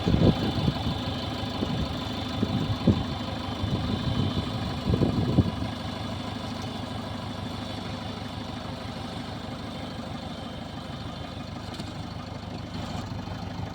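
JCB backhoe loader's diesel engine running steadily at idle. A few short louder bursts come in the first five seconds, and then the engine settles into an even hum.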